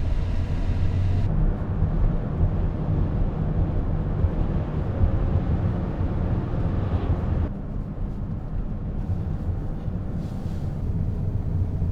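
Van driving: a steady low rumble of engine and road noise, whose tone changes abruptly about a second in and again about seven and a half seconds in.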